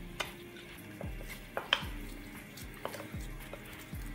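Wooden spatula scraping and clinking against a ceramic plate and the rim of a steel pot as soaked rice is pushed into boiling stock, with several sharp clinks, the loudest about a second and a half in. Background music with a low, regular beat runs underneath.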